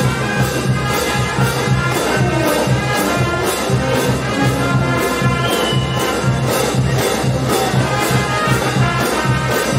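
Peruvian banda show brass band playing a huayno: trumpets, trombones and sousaphones over drums and percussion, with a strong pulsing bass line and a steady, quick beat.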